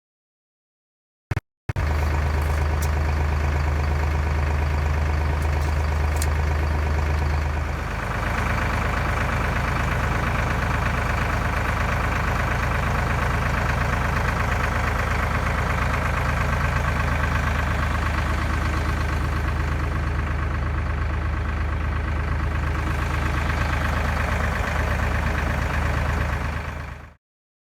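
Engine running steadily at a low, even note, which shifts slightly about 8 seconds in. The sound is broken by two short gaps near the start and cuts off suddenly near the end.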